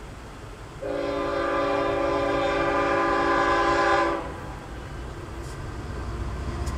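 Locomotive's air horn sounding one long blast of about three seconds, a chord of several steady tones, over constant road noise inside the car.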